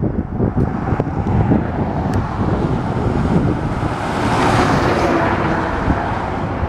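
Airbus A321-211's CFM56 jet engines running during the landing roll, a broad rushing noise that swells to a peak about four to five seconds in. Gusty wind rumbles on the microphone underneath.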